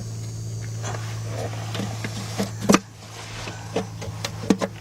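Plastic torque-converter access cover being worked loose by hand from under the truck: scattered clicks and scrapes, with one sharp knock about halfway through, over a steady low hum.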